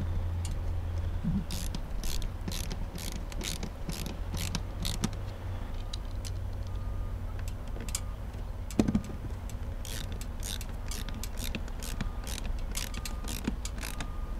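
Hand ratcheting screwdriver clicking in short runs, about two to three clicks a second, as screws are snugged down through a range-vent exhaust cover into a camper's thin fiberglass wall. A single louder knock comes about nine seconds in.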